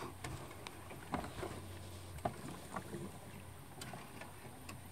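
Quiet ambience of a small boat on a river: a low steady hum with scattered light ticks and knocks.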